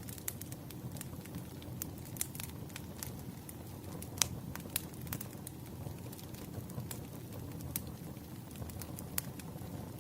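Burning firewood crackling: irregular sharp pops and snaps, with the loudest pop about four seconds in, over a steady low rush of the flames.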